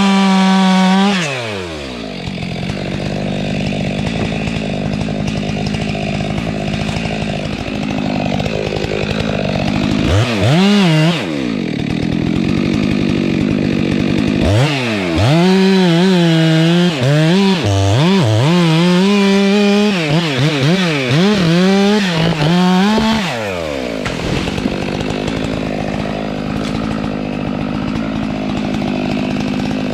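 Stihl MS 462 chainsaw revving hard and then dropping to idle about a second in. It gives a short blip of throttle around ten seconds, then runs at full throttle for about eight seconds, its pitch dipping and recovering again and again as it cuts into wood. It then falls back to idle and revs up again at the very end.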